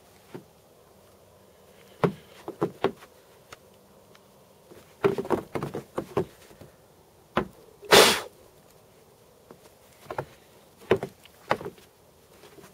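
Footsteps crunching in fresh snow: a few uneven steps and scuffs with pauses between, and one louder crunching thump about eight seconds in.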